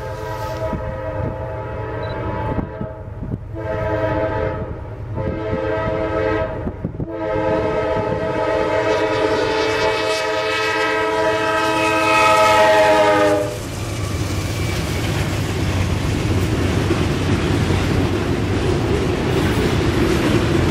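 Diesel freight locomotive's multi-note chord horn, typical of a warning for the grade crossing: two long blasts, then a longer one that cuts off about 13 seconds in. The steady rumble and clatter of autorack freight cars rolling past follows.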